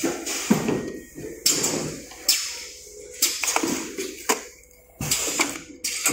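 Thin thermoformed plastic test tube trays being handled and stacked: irregular crackling clatters, about eight in six seconds, each starting sharply and fading quickly.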